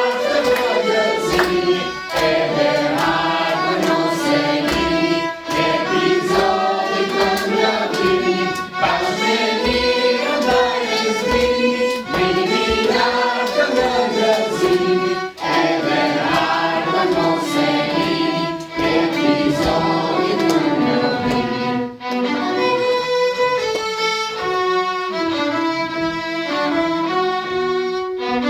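Choir singing a hymn with violin and strings accompanying. About 22 seconds in the voices drop away and the violin carries on alone with held notes.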